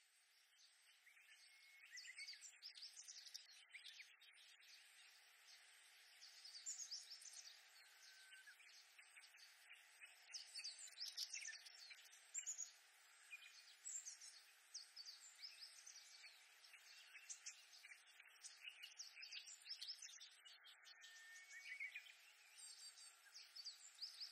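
Reed warblers singing in a busy, continuous run of short, harsh, chattering notes, with a few clearer whistled notes, over a faint steady background hiss.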